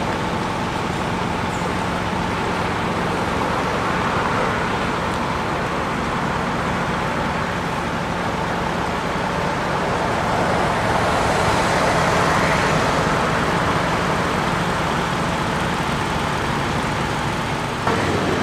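Heavy-haul truck with its multi-axle low-loader trailer, its diesel engine running with a steady hum over road traffic noise. The sound swells louder about ten seconds in and changes abruptly just before the end.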